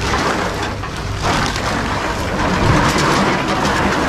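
Reverse vending machines crushing empty aluminium drink cans and plastic bottles as they are fed in: a continuous crunching and crackling with many small clicks, growing louder about a second in.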